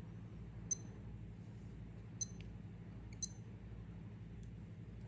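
Small, sharp, faint clicks from a wristwatch being handled, about one every second and a half, over a low steady hum.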